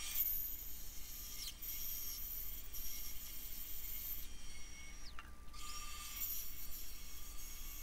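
Bandsaw running and resawing a honey locust log into slices: a steady high whine with the hiss of the blade in the wood. About four and a half seconds in, the whine falls away and then rises again as a saw starts back up.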